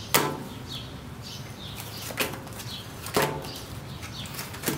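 Playing cards slapped down onto a glass tabletop: four sharp slaps, the loudest just after the start and the others about two, three and four and a half seconds in, with lighter card flicks between.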